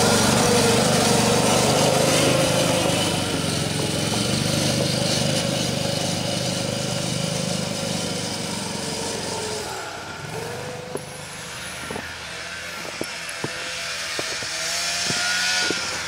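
The small 120 cc engine of an Arctic Cat 120 youth snowmobile running at a steady pitch as the sled drives off, fading over the first ten seconds or so. After that a few short knocks, and near the end another engine comes up with a rising pitch.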